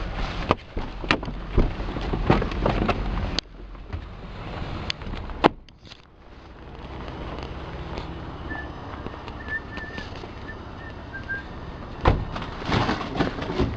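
Knocks and clanks of discarded metal store shelving being handled, with a single loud bang about five and a half seconds in and another cluster of knocks near the end. A few faint bird chirps come through in the quieter middle stretch.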